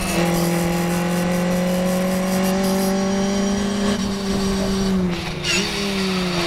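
Morgan race car's small engine, heard from its open cockpit, pulling hard with its note climbing slowly along the straight. From about four seconds in it lifts off and drops in pitch in steps as the car slows and changes down for the corner.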